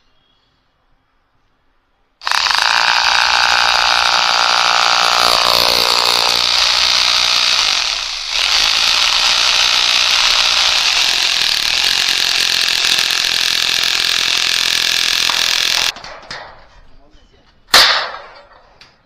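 Cordless drill boring into stone-tiled masonry, starting suddenly about two seconds in and running hard for about fourteen seconds with a brief let-up midway. Its whine drops in pitch a few seconds in. A single sharp knock follows near the end.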